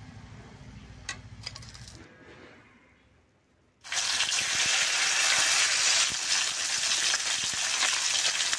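Egg-coated pumpkin-leaf fritters going into hot oil in a karai and sizzling loudly, starting suddenly about four seconds in and holding steady. Before that there is only a low hum and a couple of light clicks.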